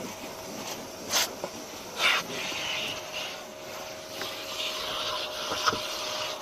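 Car-wash vacuum running with a steady hiss and faint hum while its hose nozzle is drawn over the boot carpet, with a few short scrapes or knocks of the nozzle.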